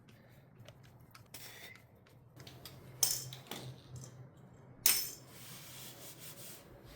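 Light metallic clinks and taps of small parts and tools being handled while lines are routed on an engine, with two sharper clinks about three and five seconds in.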